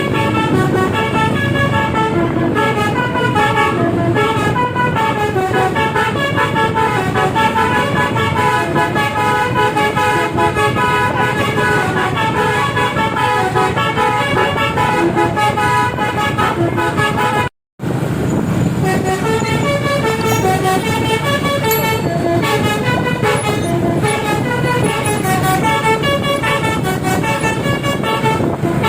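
Tour bus's multi-tone musical air horn (basuri 'telolet' horn on a tune module) playing a fast melody of short stepped notes, over the noise of the running vehicle. The sound cuts out for an instant about two-thirds of the way through, then the melody picks up again.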